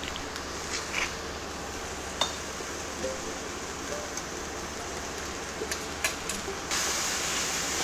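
Onions, peppers and tomatoes sizzling softly in a hot, lightly oiled stainless steel sauté pan, with a few light clicks of metal tongs against the pan. The sizzle gets louder near the end as the vegetables are stirred.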